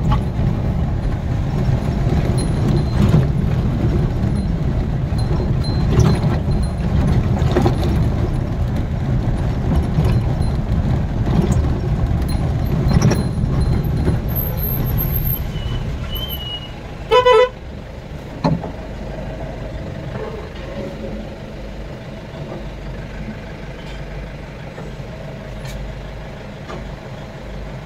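Motor vehicle running, a steady low rumble that drops away about two-thirds of the way through. A short horn toot sounds just after it drops.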